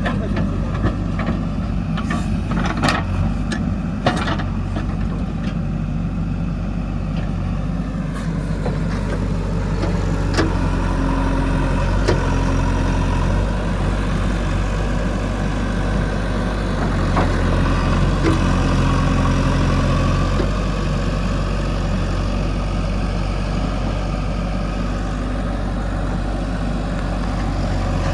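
Heavy diesel engine running steadily at idle, with a few sharp knocks in the first few seconds.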